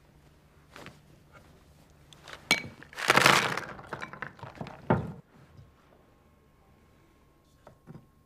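A cloth bag of treasure slammed down on a wooden table: a sharp knock about two and a half seconds in, then a loud clatter of the contents, and a last knock about two seconds later.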